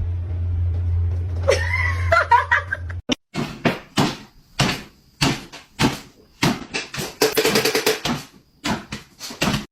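A steady low hum for about three seconds, with a short gliding pitched sound near its end. Then a run of sharp knocks or thumps, roughly two a second.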